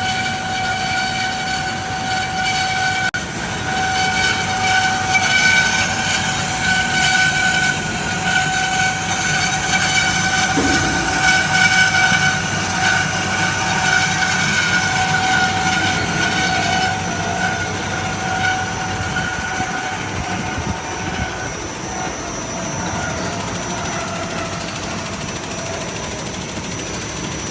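SMT-350NC automatic metal-cutting band saw running, its blade cutting through metal stock with a steady high-pitched whine and overtones over mechanical noise. The whine's pitch pattern shifts about two-thirds of the way through.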